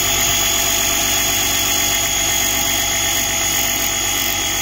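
Portable air compressor built into a Cen-Tech 4-in-1 jump pack running steadily with a constant high whine, pumping air into a basketball through a needle valve.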